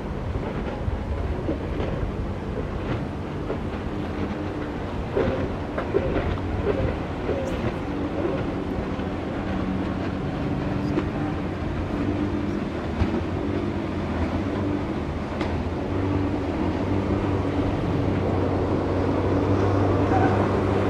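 Jet ski engine droning steadily across the water, growing louder near the end as the craft comes closer, with a few sharp clicks in the first half.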